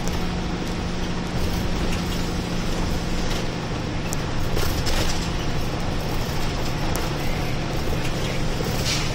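Inside a moving route bus: the steady run of the engine and tyre noise on a wet road. A low steady hum fades about three seconds in, and a few short clicks come through the cabin.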